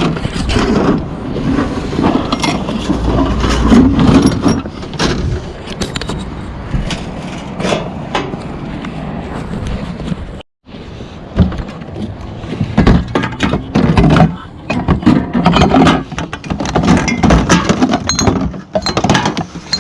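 Repeated clanks, knocks and scrapes of scrap metal and empty containers being handled and sorted. The sound drops out completely for a moment about halfway through.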